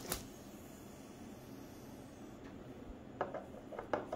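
Handling of a cardboard vape-kit box on a desk: a single sharp tap just after the start, then low room hiss, then a series of soft taps and rubbing from about three seconds in.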